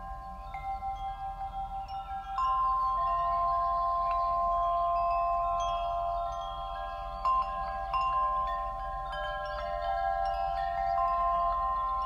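Chimes ringing: overlapping long, bell-like tones, with a new note coming in every second or two and a louder entry about two and a half seconds in.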